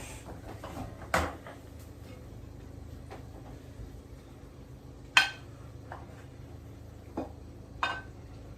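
Frying pan and utensils clanking against a plate as the omelette is slid out: four sharp knocks and clinks, the loudest about five seconds in, over a steady low hum.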